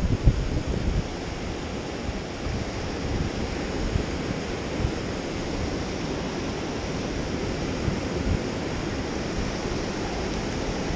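Ocean surf washing steadily onto the sand and rocks, with wind buffeting the microphone, strongest in the first second.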